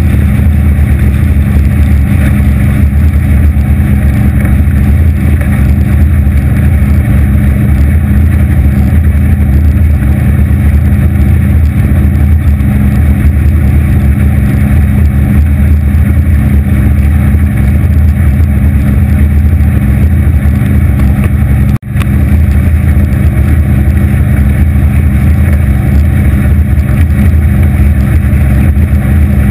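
Aluminium motorboat running at speed, its 250 hp Evinrude outboard giving a loud, steady drone under hull and water noise. The sound drops out for an instant about three quarters of the way through.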